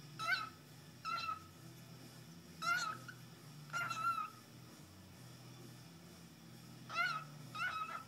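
Cockatiel saying its learned phrase "good bird" while having its head scratched. It gives three pairs of short, raspy calls, each pair about a second long, that rise in pitch at the start and then hold steady.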